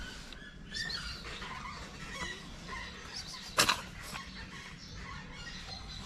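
Small birds chirping in short, scattered calls, with one sharp click or knock about three and a half seconds in.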